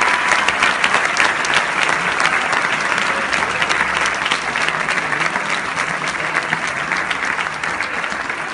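Audience applauding, dense clapping that slowly dies down.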